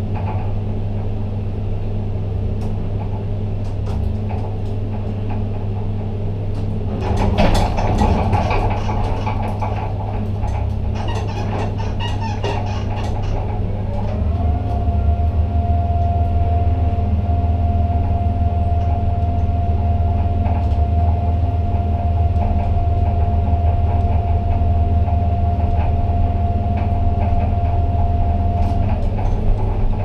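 Ship-to-shore gantry crane heard from its operator's cab: a steady low hum of the crane's drives, with rattling and clanking for several seconds about a quarter of the way in. About halfway, the trolley's travel motor whines up in pitch and then holds one steady note as the trolley runs out along the boom, stopping shortly before the end.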